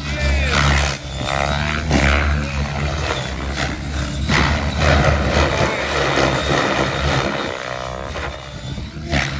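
Electric Align T-Rex 700X RC helicopter flying 3D aerobatics, its main rotor spinning at about 2250 rpm headspeed: a steady low blade hum with repeated surging whooshes as the blades load up in flips, and a falling-then-rising pitch as it swoops past near the end.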